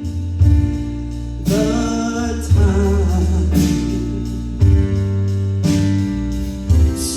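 Live band with drums playing a slow blues ballad, a strong beat about once a second under held chords, with a singer's long, bending note over it.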